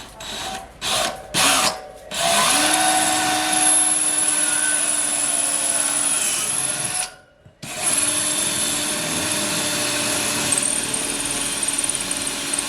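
Power drill boring a hole into wall tile: a few short trigger bursts, then two long steady runs with a brief stop between them. The motor holds a constant pitch under load as the bit works through the hard tile.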